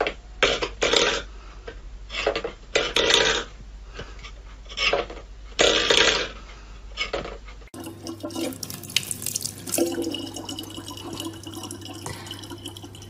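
A stainless steel pet bowl clattering in several separate bangs against a wooden floor as a cat paws it. About eight seconds in it gives way to a thin stream of tap water running steadily into a plastic bottle.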